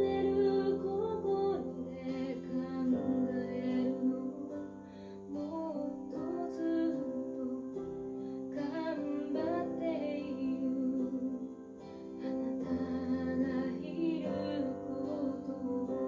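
Music played back through Revel PerformaBE M126BE bookshelf speakers (beryllium tweeter, ceramic woofer): a slow song in which a woman sings phrases over plucked-string accompaniment.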